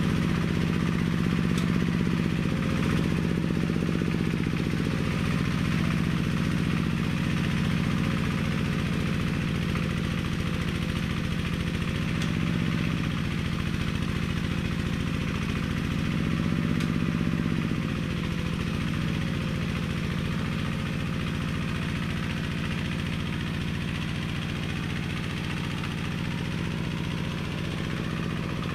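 Engine of a homemade four-wheel-drive mini-tractor built from a walk-behind tractor, running steadily while it drags three cultivator tines through the soil. Its pitch rises and dips briefly a few times, and it grows a little fainter in the second half as the tractor moves off.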